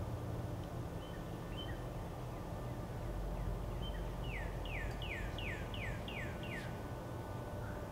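Songbird singing: a few scattered chirps, then a quick series of about seven clear notes, each sliding downward, about three a second. A steady low rumble runs underneath.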